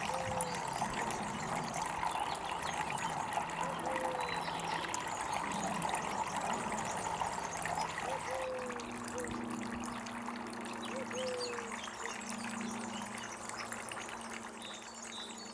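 Water trickling and splashing steadily from the tiers of a Smart Garden Queensbury three-tier solar fountain, spilling over the bowl rims into the bowls below.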